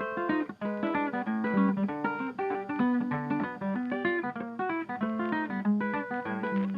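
Background music: a quick, plucked acoustic guitar tune.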